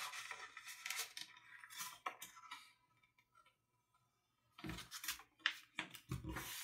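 Sheet of letter-size printer paper rustling and crinkling as it is folded and creased into a paper-airplane wing, with hands sliding and pressing on the paper and cutting mat. Faint, with a quiet gap in the middle.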